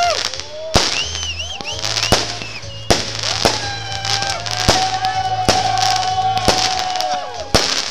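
Aerial fireworks shells bursting: sharp bangs one to two seconds apart. High tones that rise and fall, and a long steady tone in the second half, sound between the bangs.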